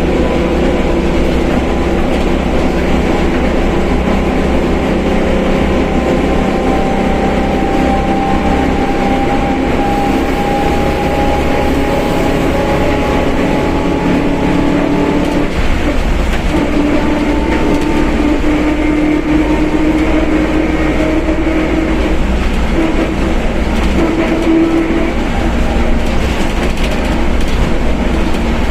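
Mercedes-Benz OF1721 BlueTec 5 bus under way, its rear differential droning loudly over the rumble of the drivetrain. The gear whine rises slowly in pitch and is strongest in the second half.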